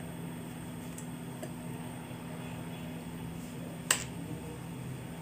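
A steady low hum, with one sharp click just under four seconds in.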